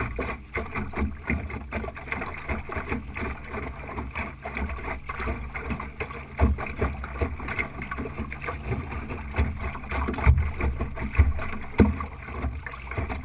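Water splashing and slapping against a small Optimist sailing dinghy's hull as it sails, with many small irregular knocks, over a gusting wind rumble on the microphone.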